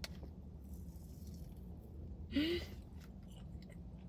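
Quiet chewing of a soft blueberry marshmallow. A short sound rising in pitch, about two and a half seconds in, is the loudest moment.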